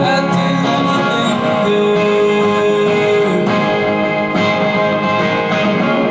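Guitar-led music with sustained chords; one note is held for about two seconds in the middle.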